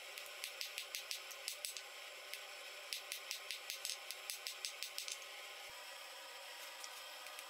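Rapid hammer blows on hot steel at the anvil, about four or five strikes a second, with a short pause about two seconds in and stopping a little after five seconds, over a steady hum.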